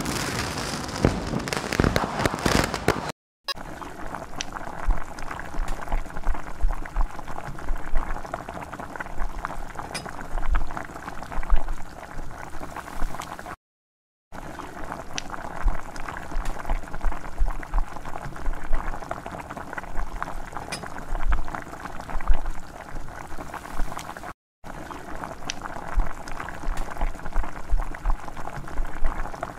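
Chopped onions sizzling and crackling in hot oil in a miniature steel kadai. The sizzle is loudest for the first few seconds as the onions go in, then settles to a steady sizzle with small pops, broken three times by brief silent gaps.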